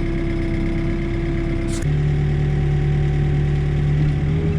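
Backhoe's diesel engine running steadily. About two seconds in there is a short click, and the engine note changes and gets a little louder.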